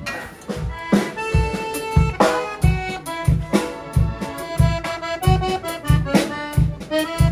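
Accordion playing a melody over a steady low bass beat, about two and a half beats a second.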